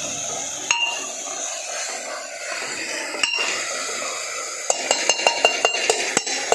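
Metal utensils clinking against a cooking pot: two single clinks, then a quick run of about ten clinks near the end, over the steady sizzle of chicken and onions frying.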